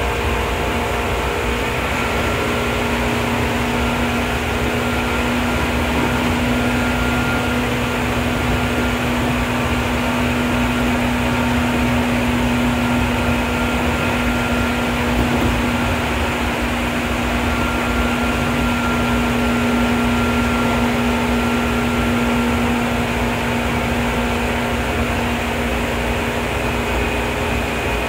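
Seibu 2000 series field-chopper-controlled electric train running at speed, heard from inside a passenger car: a steady rumble of wheels on rail with a constant low hum and faint higher tones.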